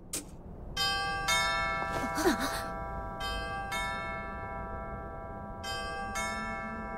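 Bells striking in pairs about every two and a half seconds, each stroke ringing on over the last.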